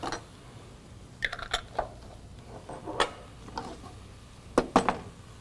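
Knife tapping and cutting on a plastic cutting board: a handful of irregular clicks and knocks, the loudest two close together near the end.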